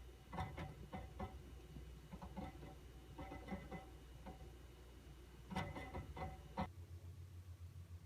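Western Digital hard drives in a QNAP TS-419P II NAS working under load: irregular clusters of rapid clicking and ticking from the drives' heads seeking, over a low hum. Near the end the clicking stops and the hum settles into a steady pulsing drone.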